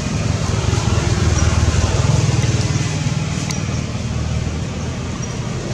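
Steady low engine hum of a motor vehicle running, holding a constant pitch.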